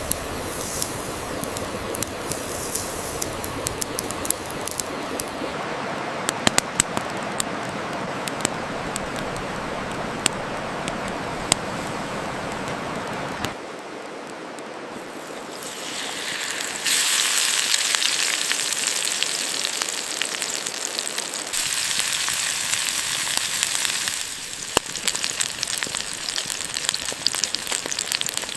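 Campfire crackling with many sharp pops over a steady hiss of a salmon fillet sizzling on a hot stone. About halfway through the sound drops briefly, then a louder, brighter hiss comes in for two stretches of several seconds each before the crackling returns.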